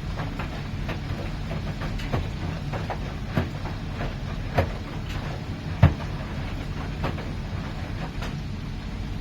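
Miele PW 6080 washing machine running, with a steady low hum and a short knock or clack a little more than once a second, the loudest about six seconds in.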